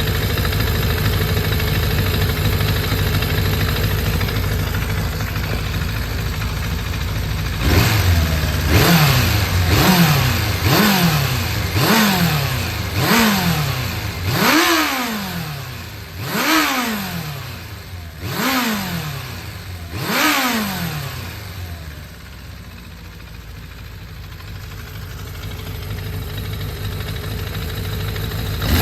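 Suzuki GSX400 Impulse (GK79A) inline-four engine running at a steady idle, then blipped about ten times in quick succession, each rev rising sharply and falling back, before it settles to idle again. The seller describes the engine as free of abnormal noise.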